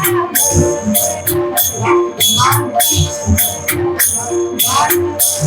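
Devotional kirtan music: small metal hand cymbals struck in a steady rhythm about twice a second, each strike ringing, over drum beats and steady held tones with a gliding melody line.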